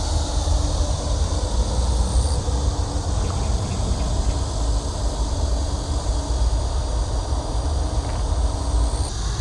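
Steady outdoor background noise: a constant low rumble under a high, even hiss, with a faint hum that comes and goes.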